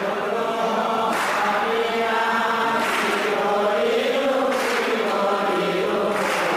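A group of voices chanting together in a slow devotional chant, the sung line held and bending without break. A bright, hissy accent recurs about every second and a half to two seconds, keeping time.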